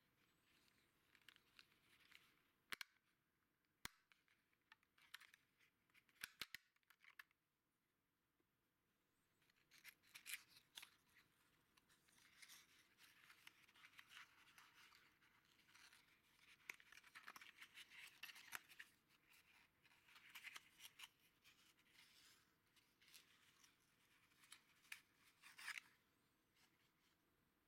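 Faint handling of small cardboard valve boxes: a few sharp clicks and taps in the first several seconds, then long scratchy rubbing and scraping of cardboard as a box's end flap is opened.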